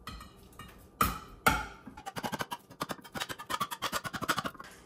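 A kitchen knife driven hard into the lid of a metal can twice, then a fast run of short metallic strokes as it is worked around the rim: the can is being opened with a knife instead of a can opener.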